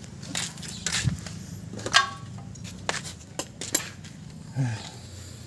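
Scattered light clicks and metallic knocks of hands and tools handling parts in an open car engine bay, over a low steady hum, with a brief squeak about two seconds in.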